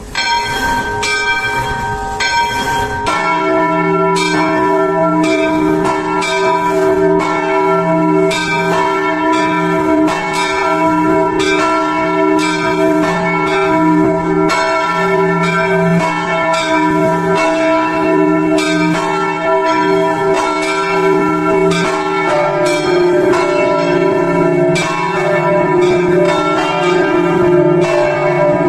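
Church bells pealing: several bells of different pitches struck one after another at about two strokes a second, each stroke ringing on under the next. A low rumble sits beneath the bells for the first three seconds, then stops.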